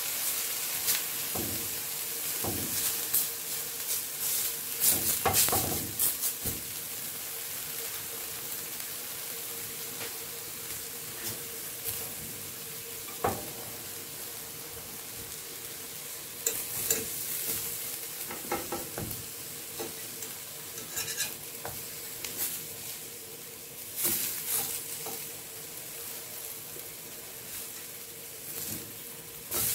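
Eggplant slices sizzling on a hot cast-iron grill pan, with a steady hiss and scattered taps and scrapes of a basting brush and utensil against the pan, most in the first few seconds.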